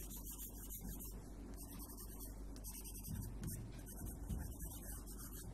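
Light blue colored pencil scratching on drawing paper in repeated quick strokes while shading in the sky-blue water.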